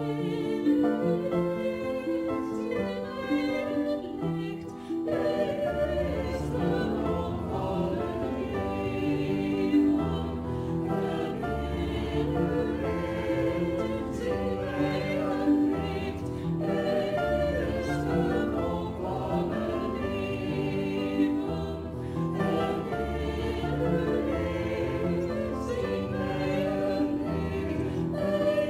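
Choral music: a choir singing with instrumental accompaniment, with a deeper bass part joining about five seconds in.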